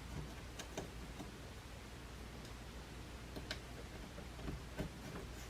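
Faint scattered small clicks and taps of a wire being handled and worked into place on a model railway baseboard, over a low steady hum.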